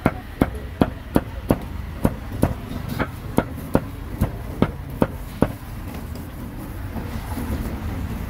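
Cleaver chopping roast pork on a wooden block: about fourteen even, sharp strokes, a little over two a second, stopping about five and a half seconds in.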